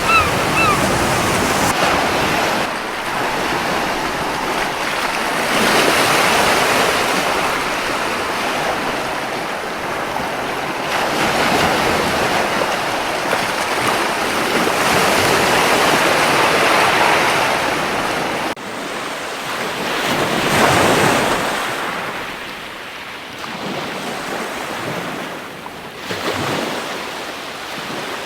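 Surf washing onto a beach in slow swells that rise and fall every few seconds, with wind on the microphone. A gull gives a few quick calls at the very start, and the surf cuts abruptly to a quieter stretch about two-thirds of the way through.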